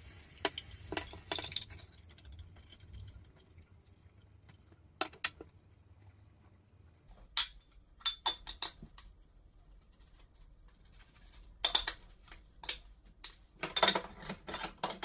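Ceramic and plastic bathroom items clinking and knocking as they are picked up and set down on a sink counter: a string of separate sharp clinks, more of them together near the end.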